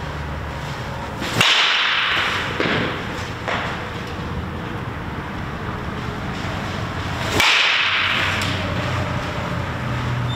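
Baseball bat hitting pitched balls in batting practice: two sharp cracks of bat on ball about six seconds apart, each followed by a brief swish.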